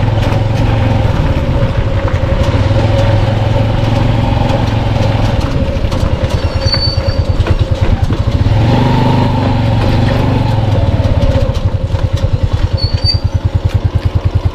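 Small motorcycle engine running while riding, picking up speed around the middle, then easing off to a slow, pulsing putter near the end.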